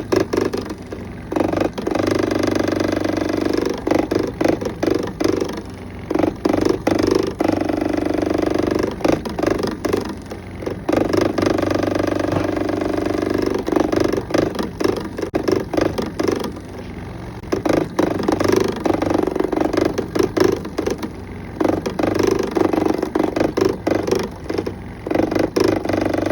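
Refrigerator cooling fan spinning and striking its surrounding guide: a loud, irregular rattle over a steady hum, swelling and easing every few seconds. It is the fan blades hitting the guide, not a failed compressor.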